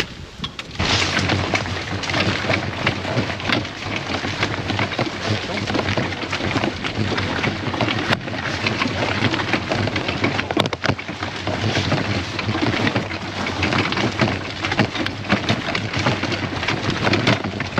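A loaded four-wheeled fishing tackle trolley rolling over a gravel path: a steady rumble and rattle of wheels on stones and the shaking frame, full of small crackles, starting suddenly about a second in.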